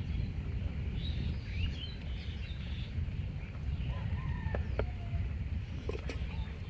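Birds chirping in short sweeping calls, mostly in the first couple of seconds, with a few brief whistled notes later, over a steady low rumble of outdoor ambience and wind on the microphone.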